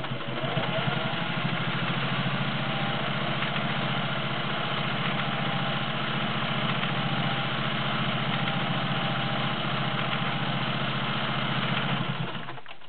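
A 1968 Singer 500A Slant-O-Matic sewing machine, all-metal and gear-driven, running steadily at one speed while sewing the pyramid pattern stitch. It stops near the end.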